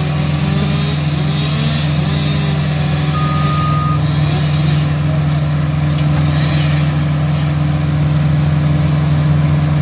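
Engine of tree-removal machinery running steadily at constant speed, a heavy low hum that does not change. A short high beep sounds once, about three seconds in.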